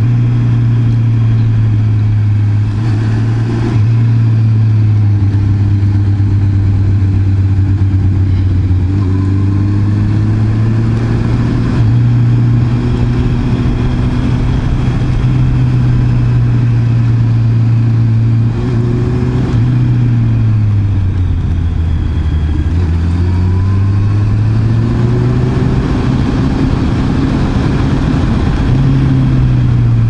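Honda CB650R's inline-four engine running under way at fairly steady revs. Its note drops about two-thirds of the way in, then climbs back up.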